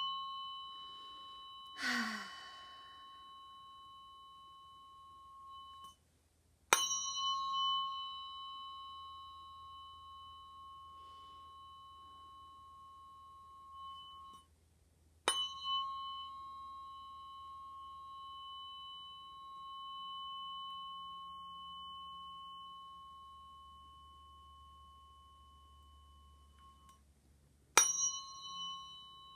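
Tuning fork struck with a sharp ping and left ringing in a long steady tone, then stopped and struck again, about seven, fifteen and twenty-eight seconds in; this is Biofield Tuning sound healing. About two seconds in there is a long sighing exhale.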